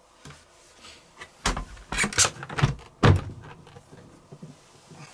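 Washing machine door being handled and shut: a run of knocks and clatter, then a heavy thud about three seconds in.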